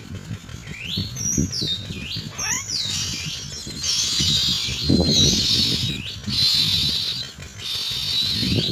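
Myna birds calling: repeated high whistled notes that fall in pitch, then from about three seconds in a continuous harsh, hissing chatter. A crackly low rumble of wind on the microphone runs underneath.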